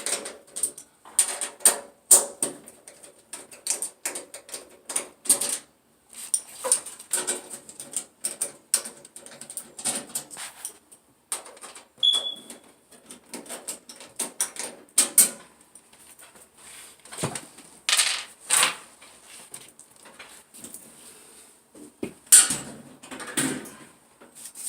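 Irregular clicks, clanks and knocks from hands and tools working on a clothes dryer's sheet-metal cabinet and its clips while it is being taken apart. There is a brief high beep about halfway.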